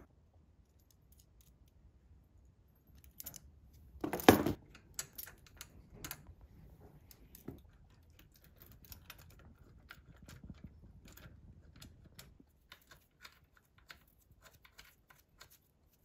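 Light clicks and clacks of small metal parts being handled as the throttle linkage is fitted to a bank of individual throttle bodies, with one louder clatter about four seconds in.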